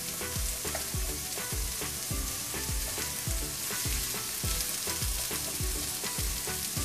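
Chopped onions sizzling in a little oil in a nonstick frying pan as they soften. A spatula stirs them with repeated soft knocks against the pan, two or three a second.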